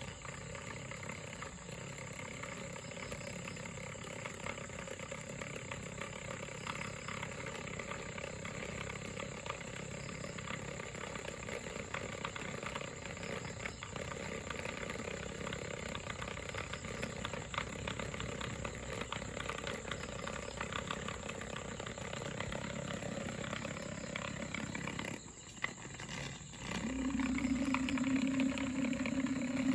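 Small battery-powered DC motor spinning a propeller cut from a plastic bottle, giving a steady whirring buzz. Near the end the sound dips briefly, then a louder low steady hum comes in.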